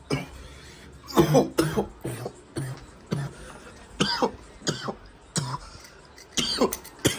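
A person in a coughing fit after smoking: a long run of coughs, one or two a second, starting about a second in.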